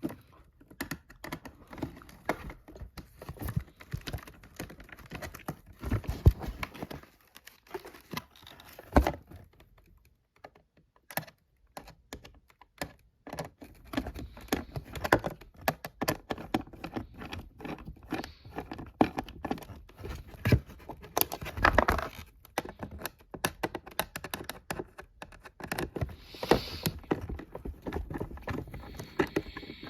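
Hands handling and opening packaging: irregular clicks, taps and knocks with crinkling and rustling of packaging material.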